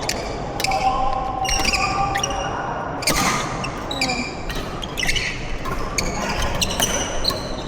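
Badminton doubles rally: rackets striking the shuttlecock in sharp hits about once a second, with shoes squeaking on the court floor between shots.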